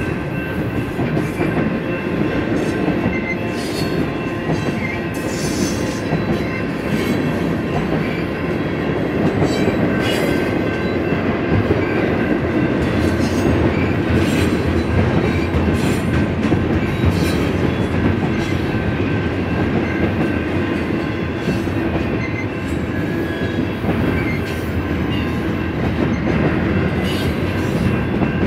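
Freight train cars rolling past: a steady rumble of steel wheels on rail, with irregular clicks and clanks and a faint steady high-pitched tone above it.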